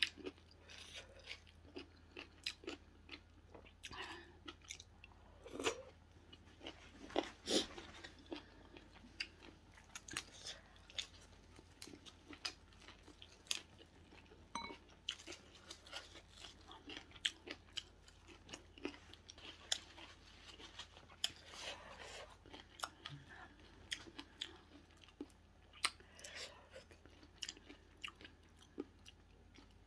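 A person chewing and crunching food close to the microphone, with many small irregular mouth clicks and smacks.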